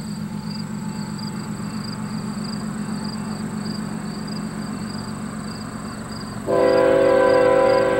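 Diesel engine rumble of an approaching freight train led by GE ES44C4 locomotives, with a level-crossing bell dinging about twice a second. About six and a half seconds in, the lead locomotive's air horn sounds a loud chord of several notes and holds it.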